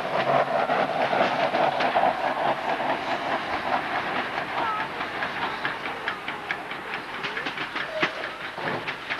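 Railway wagons rolling on the track: a steady rumble with wheels clicking over the rail joints, easing off after about three seconds while the clicks go on.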